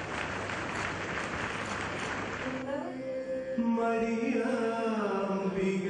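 Chant-like singing with long, steady held notes that step from one pitch to the next. For about the first two and a half seconds a dense, even noise lies over it.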